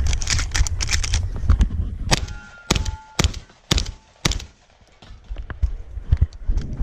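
Shotgun fired rapidly, five sharp shots about half a second apart, with steel targets ringing after the hits. Before the shots, rumbling handling noise and knocks.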